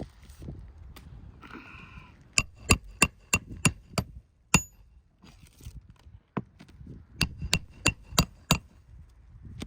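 A hammer driving roofing nails into asphalt shingles, in two runs of quick, ringing blows about three a second, with a short squeak before the first run.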